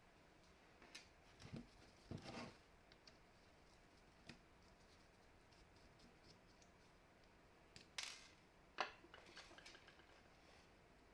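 Small metal clicks and scrapes of screws being worked out of an old impact driver's metal nose housing with a screwdriver and fingers. The sounds are faint, with a few short clicks about two seconds in and a sharper pair around eight to nine seconds in.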